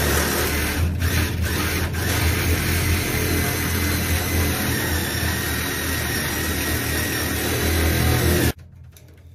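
Cordless reciprocating saw cutting through steel oil-tank pipe, a loud steady buzzing rasp with a couple of brief stutters in the first two seconds. It cuts off suddenly about eight and a half seconds in as the blade goes through the pipe.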